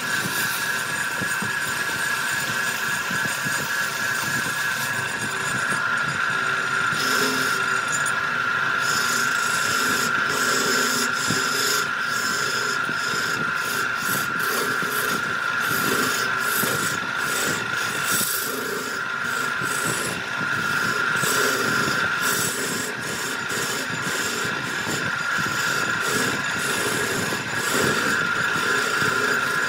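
Wood lathe running while a turning tool cuts and scrapes the spinning wood: a steady high whine over rough, uneven scraping.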